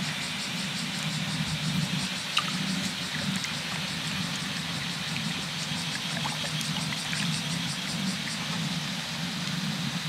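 Small waves lapping and trickling against a wet rock at the water's edge, over a steady low hum. A faint, fast insect chirring runs high above, and a small sharp drip or splash stands out a couple of seconds in.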